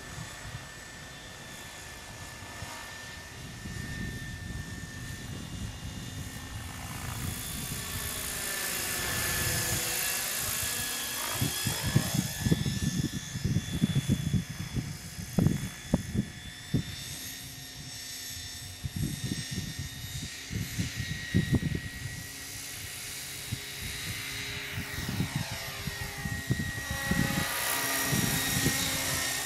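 Gaui Hurricane 550 radio-controlled helicopter in flight: a steady high motor and gear whine over the whoosh of the rotors. It swells and sweeps in tone as the helicopter passes close, about a third of the way in and again near the end. Irregular low buffeting runs through the middle stretch.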